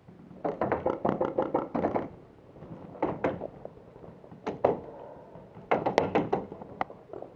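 Bursts of rapid paintball fire: a string of about eight sharp shots in the first two seconds, a few more around three and four and a half seconds in, and another burst near the end.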